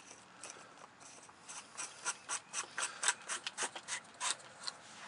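A 1.5-inch PVC male threaded adapter being screwed by hand into the cast-iron discharge of a Zoeller M53 sump pump: a run of short scraping clicks as the plastic threads turn, coming thick and fast from about a second and a half in.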